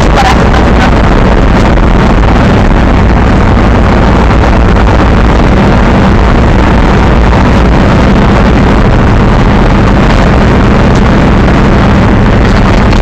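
Monster truck engine running steadily while the truck drives, heard from inside the cab, loud enough to overload the recording.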